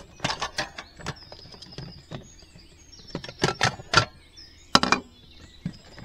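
Crockery clattering: a mug and spoon being handled and set down while coffee is made, a string of sharp clinks and knocks, the loudest near the start, around three and a half to four seconds in, and near five seconds.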